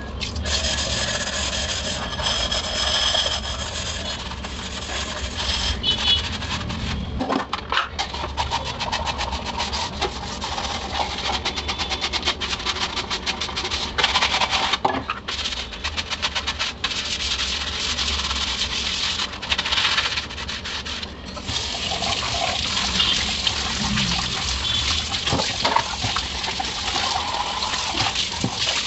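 Dishes washed by hand in a stainless steel sink: a soapy plastic container and a pot are scrubbed with the hands, with knocks of the dishes against each other and the sink. Tap water runs onto them again near the end.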